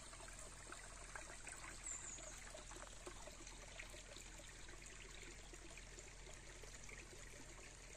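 Faint, steady trickle of a small, shallow stream running over stones.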